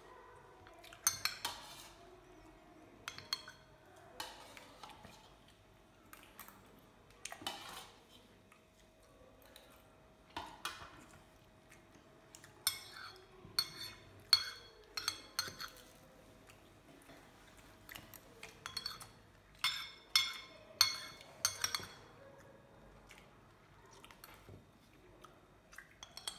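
Metal spoon clinking and scraping against a ceramic bowl while scooping up the last bits of dessert. Sharp clinks come in irregular bunches, thickest through the middle and again near the end.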